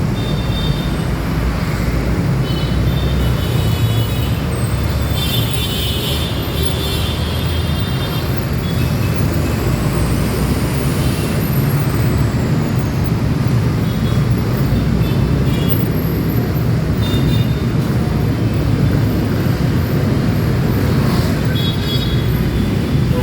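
Heavy, slow road traffic: a steady rumble of engines, with vehicle horns honking in several short bursts, the loudest about six seconds in.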